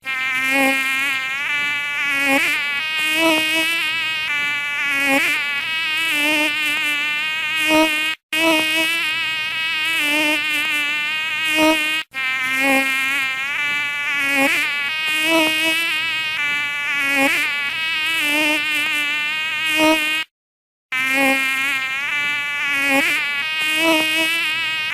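A fly buzzing in a continuous drone whose pitch wavers up and down. It cuts out twice for an instant and once for about half a second, around 20 seconds in.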